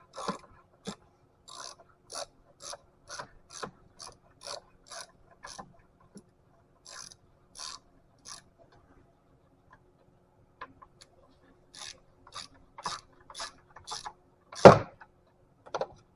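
Socket ratchet clicking in short, even strokes, about two a second, as the 13 mm bolt of a car battery hold-down is loosened. The clicking pauses around the middle and then resumes, and one loud knock comes near the end.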